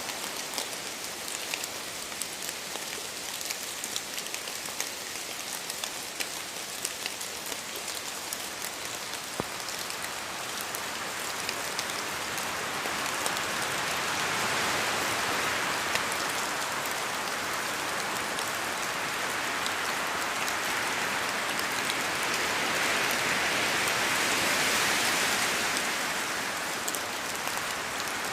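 Steady rain falling, with fine drop patter; it grows heavier about halfway through, peaks a few seconds before the end, then eases slightly.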